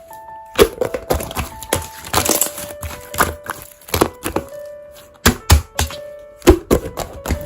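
Slime being squished and pressed, giving irregular sharp clicks and pops, over soft background music with long held notes.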